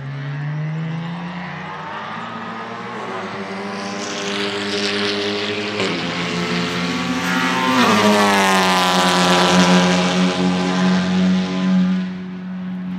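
Honda Civic Type R FL5 TCR race car's 2.0-litre turbocharged four-cylinder engine accelerating past on a wet track, its pitch rising as it approaches and dropping as it goes by about eight seconds in. The tyres hiss through standing water and throw up spray, and the sound is loudest as the car passes.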